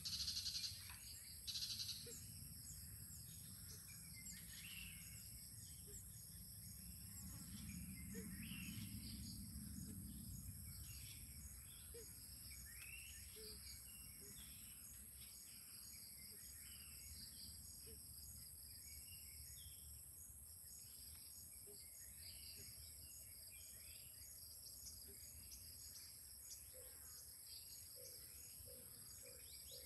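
Faint outdoor ambience: a steady high insect drone with scattered short bird chirps over a low rumble. Two brief louder bursts come within the first two seconds, and a quick run of short low notes sounds near the end.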